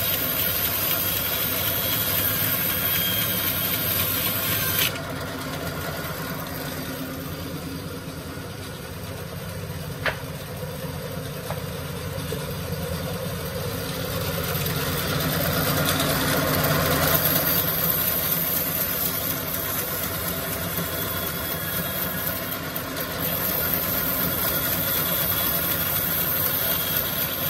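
Sawmill band saw running steadily while a timber is pushed through it, a continuous machine drone. It drops in level about five seconds in, with one sharp click near ten seconds, and swells louder a little past the middle.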